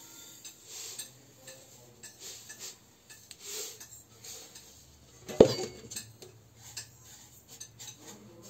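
Salt poured into a stainless-steel kadhai and spread around by hand, with small grainy ticks and scraping of grains on the metal. One sharp metallic knock on the pan a little past halfway.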